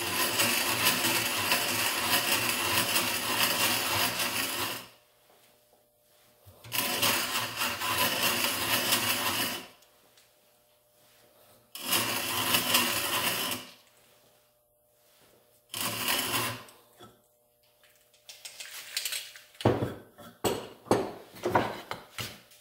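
A hollow auger turned by a hand brace, cutting a half-inch round tenon on the end of a wooden pole: four long spells of steady shaving and rasping, each a few seconds long, with short pauses between. Near the end come a quick run of short clicks and knocks.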